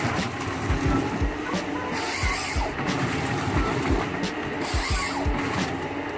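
A heavy forestry machine's engine running under a steady low hum, with repeated irregular low thuds and three short bursts of hiss.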